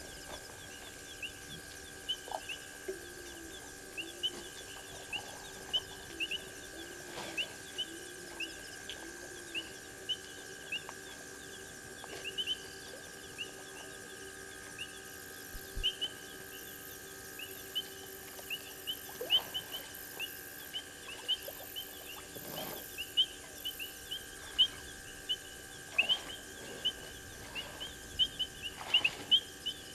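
Night chorus of frogs and insects: many short, high chirps repeat throughout, coming thicker and louder toward the end, over a steady high drone. A few soft, low notes sound in the first third.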